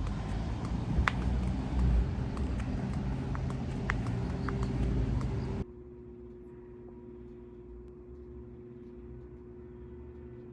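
Low outdoor rumble with scattered sharp clicks, then an abrupt cut about five and a half seconds in to a much quieter steady hum with a faint held tone.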